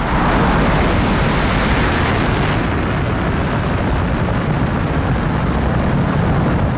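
Rocket engines firing at liftoff after booster ignition: a loud, steady, dense noise, heaviest in the low end, that goes on without a break.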